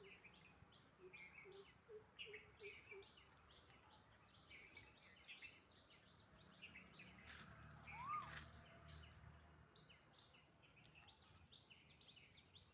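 Faint bird calls: long series of short, high chirps repeated quickly, the bird the recordist calls the 'prey bird', with a brief rising-and-falling whistle about eight seconds in.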